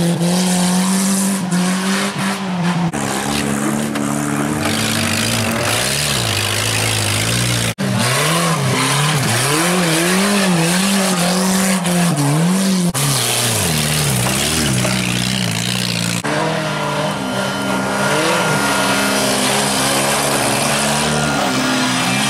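Wreck-race cars' engines revving hard on a dirt track, their pitch repeatedly rising and falling with throttle and gear changes. The sound drops out for an instant about eight seconds in.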